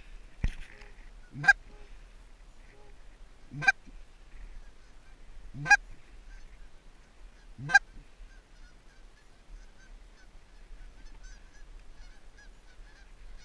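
A hand-blown Canada goose call sounding five loud, sharp honks about two seconds apart. Over the last few seconds a distant flock of Canada geese answers with many faint honks.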